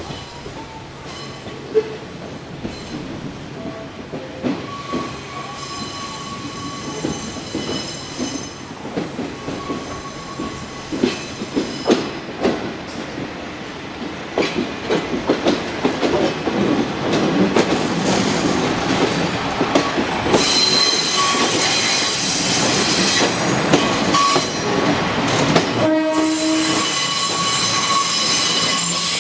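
Kiha 30 and Kiha 38 diesel railcars moving slowly over points and rail joints. The wheels click and knock irregularly, and at times give a high squeal, strongest about two-thirds of the way through. The sound grows louder as the train draws near.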